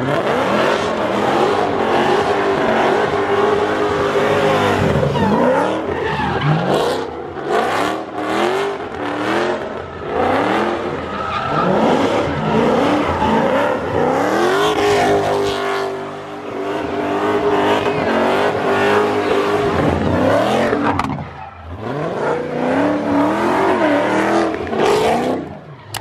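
Dodge Charger V8 revving hard, its rear tyres spinning and squealing as it does donuts. The engine pitch climbs and drops again every second or two, with one long rise and fall near the middle.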